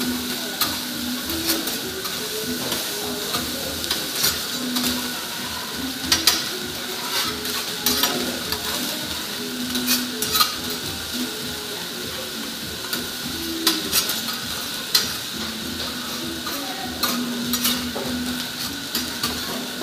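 Rice sizzling on a teppanyaki steel griddle while metal spatulas stir, scrape and tap against the hot plate, making sharp clicks scattered through a steady hiss.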